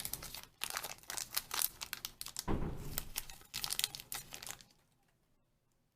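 Crinkling and tearing of a Shopkins blind-pack wrapper being handled and ripped open by hand: dense crackling for about four and a half seconds, then it stops.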